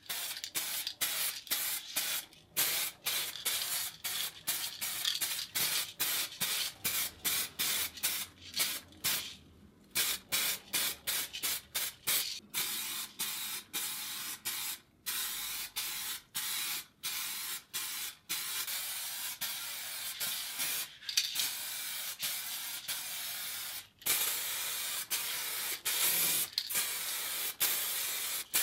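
Paint being sprayed onto the hand drill's metal body: short hissing bursts, one or two a second, giving way to longer sprays in the second half.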